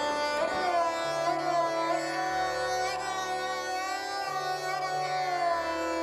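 Background instrumental music: a melody that slides in pitch over low held notes that change every second or two.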